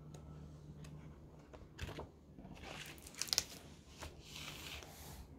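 Soft rustling of a book's paper pages being handled, in two short stretches, one about a third of the way in and one near the end, with a few light clicks. A faint low hum runs underneath.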